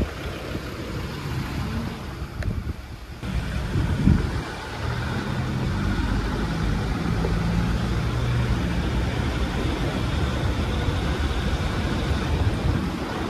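Land Rover Discovery 3 driving, its engine running under steady road and tyre noise, with a low drone that settles after about four seconds. A single knock sounds about four seconds in.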